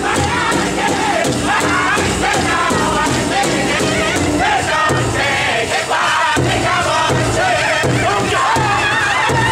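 Powwow drum group singing a chicken dance song: several men's voices in high, wavering unison over a steady beat struck together on one large hide drum.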